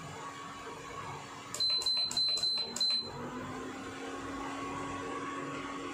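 Wooden spatula working spinach puree in a nonstick pan over a steady hum. About a second and a half in comes a quick run of about six sharp knocks with a faint ringing tone.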